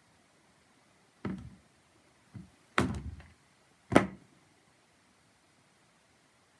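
Four dull thumps on a hard surface over about three seconds, the last the loudest.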